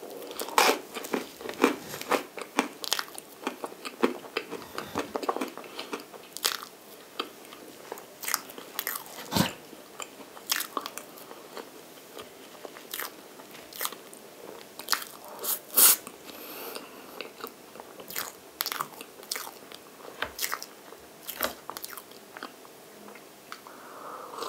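Close-miked mouth sounds of eating chocolate cream cake: soft chewing with many sharp, wet lip and tongue clicks.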